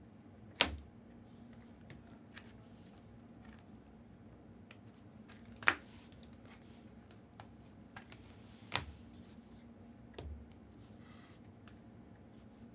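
Trading cards and packs being handled on a table: a few sharp clicks and taps a few seconds apart over a faint steady hum.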